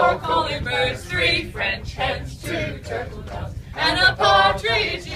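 A group of men's and women's voices singing a Christmas carol together, over a steady low rumble.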